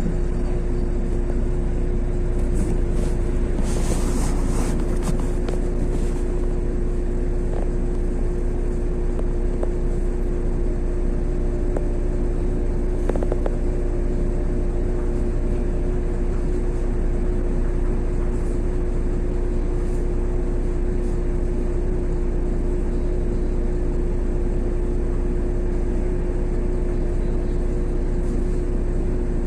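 Inside a LiAZ 6213.22 articulated city bus under way: steady engine and road rumble with a constant whine running through it, and a short spell of hiss about three to six seconds in.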